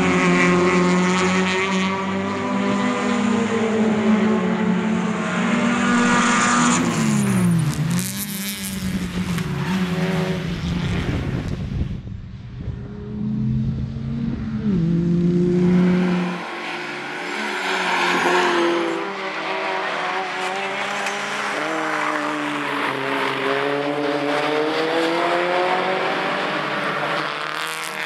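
Several small racing hatchbacks' engines revving hard as they pass through a corner, their pitch rising and falling with gear changes. Wind buffets the microphone for several seconds in the middle.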